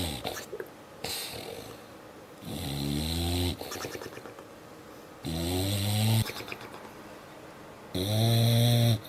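A dog snoring: three loud, pitched snores, each about a second long and coming roughly every two and a half seconds, with softer breaths in between.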